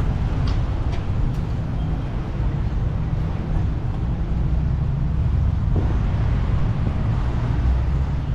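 Steady low rumble of street traffic, with no single vehicle standing out.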